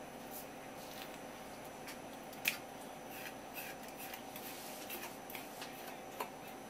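Small clicks and scrapes of a kitchen knife working against a spear squid mantle on a wooden cutting board, with one sharper tap about two and a half seconds in. A faint steady hum runs beneath.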